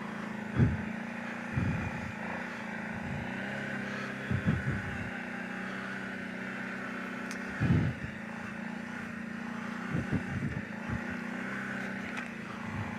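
Kawasaki Brute Force 750 ATV's V-twin engine running at a steady pitch, with several short low thumps along the way.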